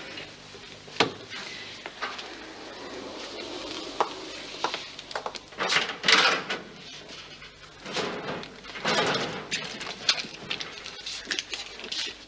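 A metal locker door being opened and things inside handled: scattered sharp clicks and clatters, with louder spells of rustling about halfway through and again a few seconds later.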